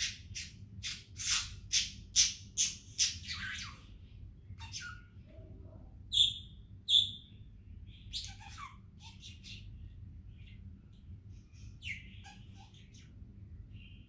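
Pet budgerigar calling: a quick run of sharp chirps in the first few seconds, two loud clear whistled notes about six and seven seconds in, then softer scratchy chatter.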